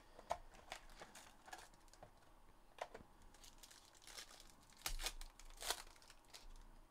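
Foil wrapper of a 2022-23 Panini Obsidian basketball card pack being torn open and crinkled by hand: a run of sharp crackles, loudest about five seconds in.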